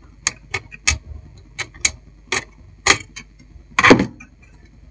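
Screwdriver tip clicking and tapping against a screw and the steel chassis of a satellite receiver as a screw is worked into place: about ten sharp, irregular metal clicks, with a longer, louder rattle a little under four seconds in.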